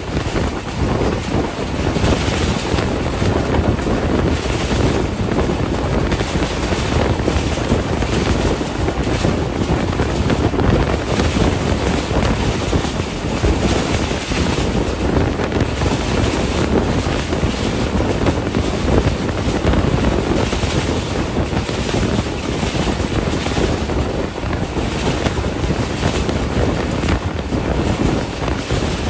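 Steady rumble of a passenger train's wheels on the rails at speed, with wind rushing and buffeting the microphone.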